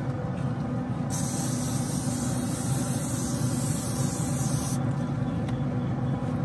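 Aerosol cooking spray hissing onto the grates of a Pit Boss pellet smoker in one continuous spray of almost four seconds, starting about a second in, over a steady low hum.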